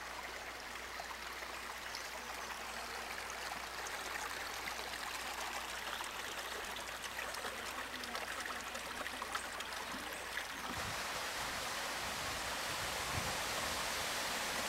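Shallow rocky stream running over stones: a steady rushing of water that grows a little louder about ten and a half seconds in.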